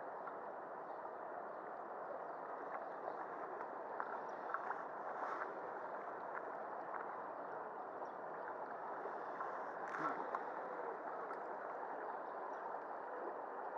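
Shallow river flowing over a stony riffle, a steady rushing and gurgling of water, with a few faint clicks.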